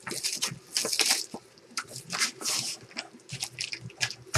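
Trading cards and pack wrappers being handled: a quick run of short, irregular rustles and crinkles.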